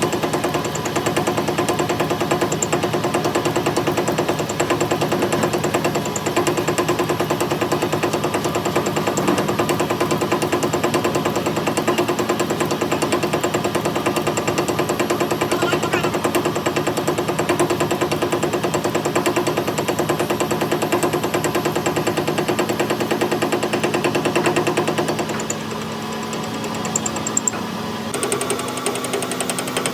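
Metal lathe running steadily with a fast, even mechanical rattle. It drops in level about 25 seconds in and changes tone again near the end.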